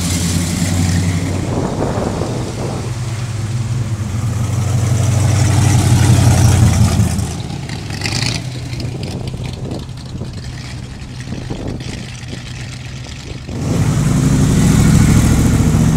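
Classic V8 cars driving past one after another, each engine's deep exhaust rumble swelling as it goes by. It is loudest about six seconds in, quieter through the middle, and swells again near the end.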